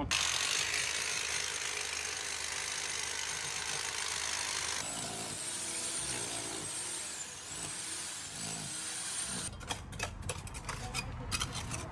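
A power tool breaking through a concrete slab, a steady noisy whirr that changes abruptly about five seconds in to a fainter noise with a thin high whine, then gives way near the end to a run of sharp clicks and knocks.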